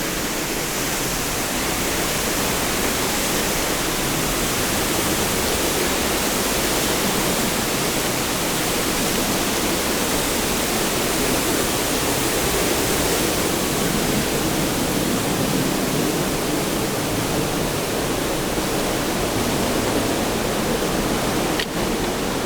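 A waterfall pouring, a steady, even rush of falling water.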